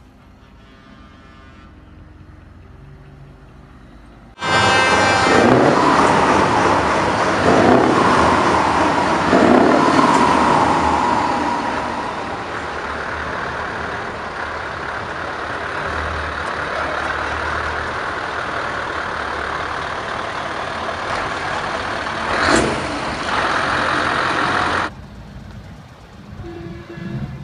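Scania T164 truck's V8 engine, faint at first, then suddenly loud about four seconds in. The revs rise and fall several times before it settles into a steady run. A single sharp crack comes near the end, and the loud sound cuts off suddenly soon after.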